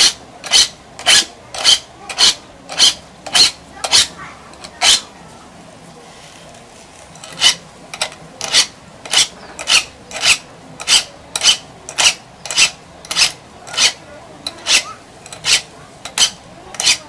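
Hand file rasping across the teeth of a dull saw to sharpen it, in short even strokes about two a second, with a pause of about two seconds partway through.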